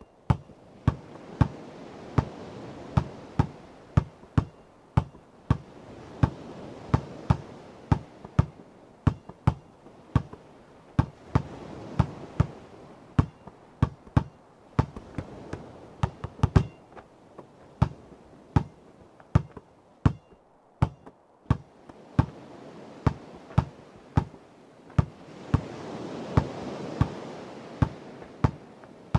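A basketball dribbled steadily on a hard surface, about two bounces a second, over ocean waves washing in and out, swelling and fading every few seconds.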